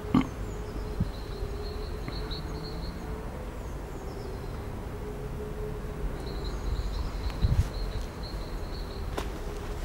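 Distant civil-defence siren holding a steady tone, with birds chirping high above it in two spells and a low background rumble; a couple of sharp clicks, one right at the start and one near the end.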